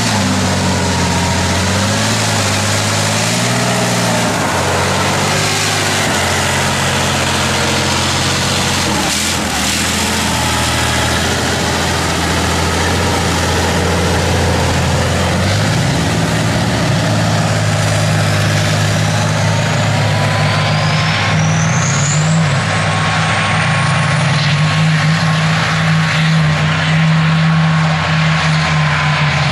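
Diesel engine of a BMP-type tracked armoured vehicle running under load as it drives across mud, its pitch shifting up and down in the first few seconds, then holding steadier and rising somewhat higher in the second half.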